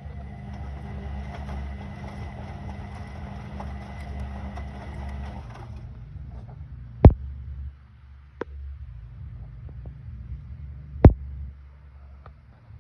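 Zanussi washing machine running: a steady motor hum with a high whine and a low rumble, the whine stopping about six seconds in, then two sharp knocks a few seconds apart over the continuing low hum.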